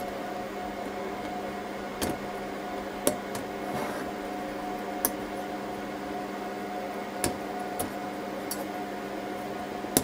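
About six scattered sharp clicks of small hard parts being handled as a server CPU is taken off and refitted the right way round in its mounting, over a steady machine hum with several tones.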